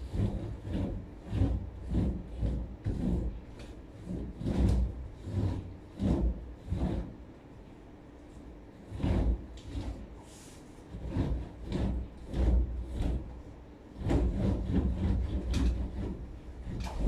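A cloth rubbing over carved wooden lattice panels in quick, uneven strokes, with wooden knocks and rattles as the panels are pressed, broken by a couple of short pauses.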